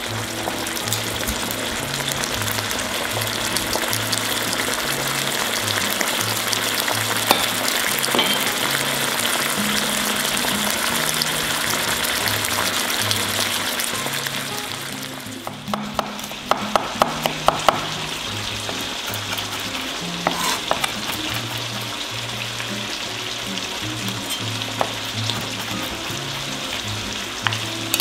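Tomato sauce with vegetables sizzling and bubbling in a wide frying pan. About halfway through comes a short run of sharp knocks.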